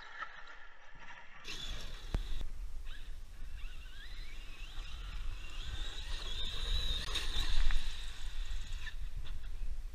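Traxxas X-Maxx 8S RC truck's brushless motor and drivetrain whining, the pitch rising and falling with the throttle and loudest a little after halfway. Wind rumbles on the microphone throughout, and there is a sharp knock about two seconds in.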